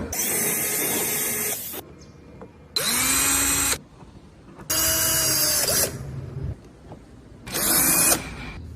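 Small handheld power carving tool running in four short bursts of about one to two seconds each, its whine rising in pitch as it spins up at the start of each burst, cutting into wood.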